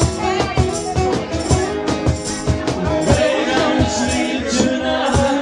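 Live acoustic band music: two strummed acoustic guitars and a cajón beating a steady rhythm, with male voices singing. Near the end the drumming stops and the guitars ring on a held chord.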